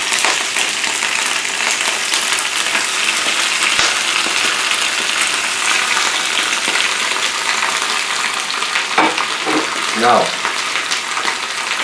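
Fresh spinach leaves sizzling and crackling steadily in hot oil and butter in a grill pan as handfuls of leaves are added.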